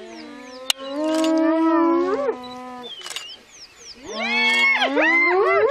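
Hyena calling: a long, drawn-out moan held for about two and a half seconds that rises in pitch at its end, then about four seconds in a second call of quick rising and falling notes. Birds chirp in the background.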